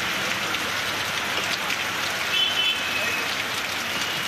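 Heavy rain falling on a wet paved street: a steady hiss of drops striking the ground and puddles. A brief high-pitched tone sounds a little past the middle.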